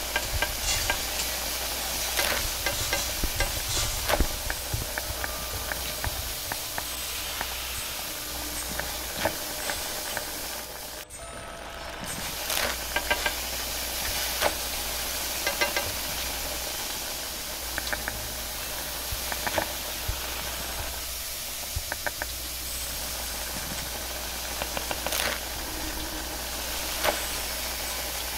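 Wok cooking over a high-power gas wok burner: steady hissing and sizzling, with frequent clicks and scrapes of a metal utensil against the wok. The sound drops out briefly about eleven seconds in.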